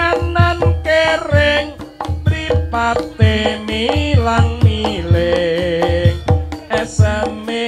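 Javanese gamelan music accompanying reog kendang, with kendang hand drums beating a fast rhythm under a pitched melody line.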